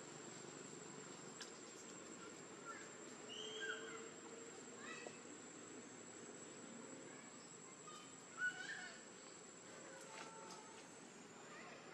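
Faint outdoor ambience with a steady high insect drone, broken by a few short high chirping calls, the loudest about eight and a half seconds in.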